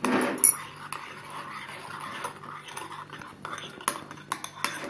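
Spoon stirring glue and borax water quickly in a bowl as the slime starts to set, a wet rustle with the spoon clicking against the bowl, several sharp clicks near the end.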